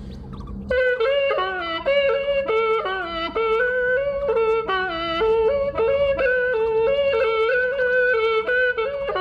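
Music: a single melody line of quick, stepping notes that starts abruptly less than a second in.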